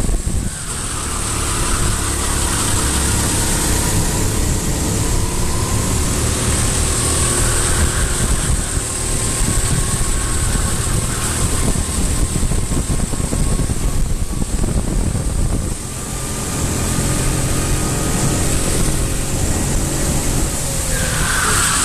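Racing engines running continuously, their tones rising and falling slowly as they rev, over a steady rushing noise.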